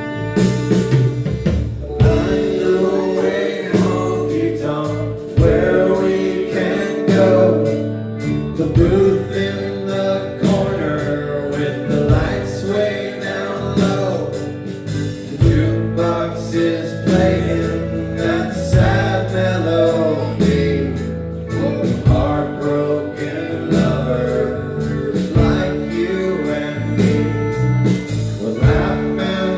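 Live band playing, with guitars, drums and singing.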